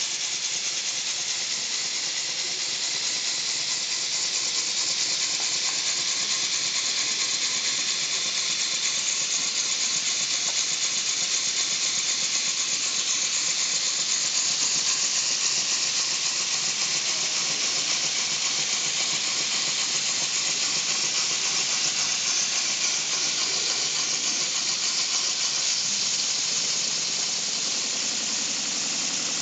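Small brass model horizontal steam engine running on compressed air: a steady hiss made of rapid, evenly spaced exhaust beats.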